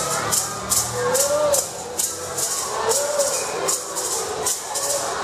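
Maracá rattles shaken in a steady beat, about two shakes a second, with a melody of short rising-and-falling notes over them: the accompaniment of a Kariri-Xocó dance.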